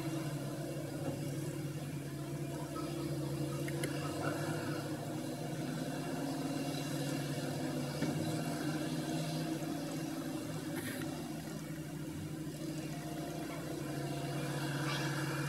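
Heavy diesel wheel loaders working, their engines giving a steady low drone.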